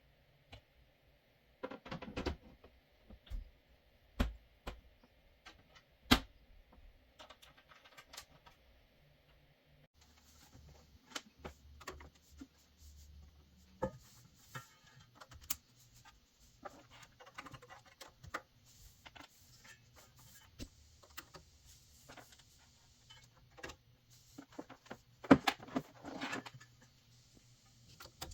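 Scattered clicks, taps and knocks of hands handling computer hardware, with a brief burst of rattling clicks near the end.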